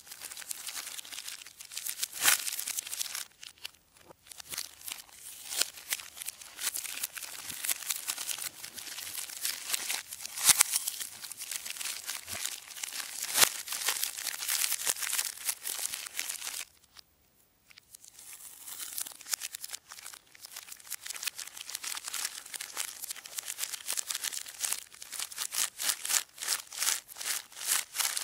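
Plastic wrappers of Kinder Bueno bars crinkling and crackling as they are handled, in a dense run of irregular crackles, with a pause of about a second partway through.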